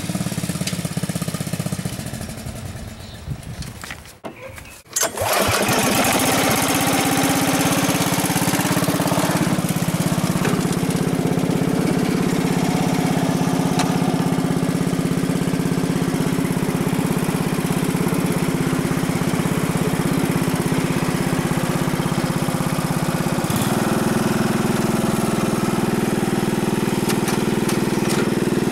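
Simplicity 4208 lawn tractor's engine running steadily. It drops away briefly about four seconds in, then runs on loud and close, with a small change in its note near the end.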